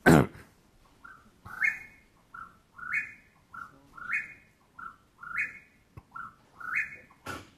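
Whip-poor-will song played back from a recording over a loudspeaker: the 'whip-poor-will' phrase repeated about six times, roughly once a second, each ending in a sharp upward sweep.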